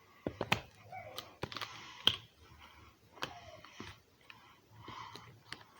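Simple dimple fidget toy being pressed: a string of sharp, irregular plastic clicks, about eight in all, mixed with short patches of rustling handling noise.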